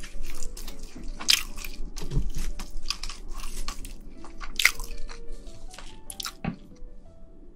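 Cooked shrimp shell crackling and snapping as gloved hands peel it off the meat, a quick run of sharp cracks that thins out near the end. Faint background music underneath.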